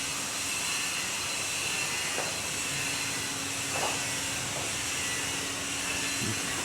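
Steady hissing noise with a faint, even low hum under it, and a few soft ticks.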